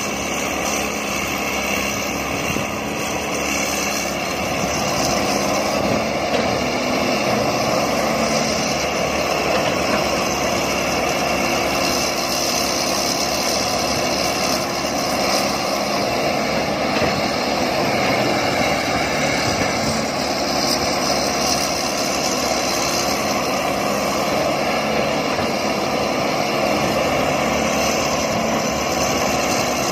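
Diesel engines of several working excavators running with a steady drone.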